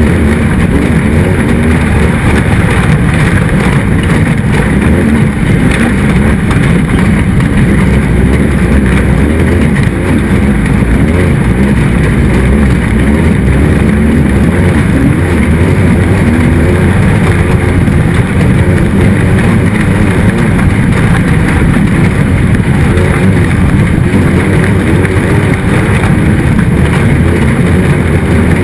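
A race car's engine running hard and steady, loud and without a break.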